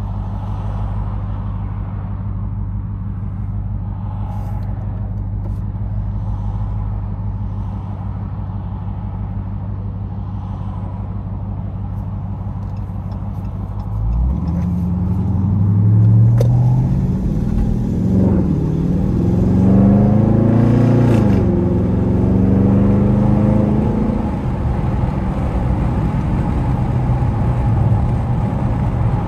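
Dodge Charger SRT's V8 engine heard from inside the cabin, running steadily at a low drone. About halfway through it opens up louder and accelerates, its pitch climbing and dropping back twice, then settles into a steady, louder drone.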